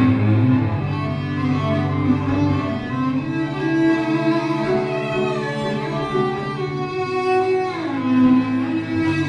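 Cello played with a bow, in layered live-looped parts: a held low note under several sustained higher lines. About three-quarters of the way through, the upper lines slide down in pitch together.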